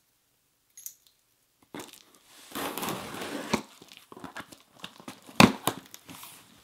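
A package being torn open by hand: a stretch of tearing about two and a half seconds in, then crinkling and rustling of packaging with scattered sharp cracks, the loudest about five and a half seconds in.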